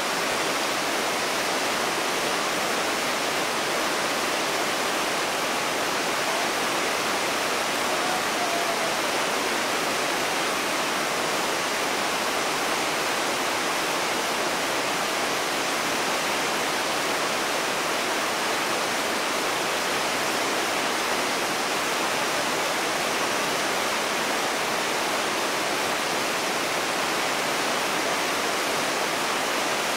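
Whitewater rapids of a river in high water, rushing steadily and evenly over boulders with no let-up.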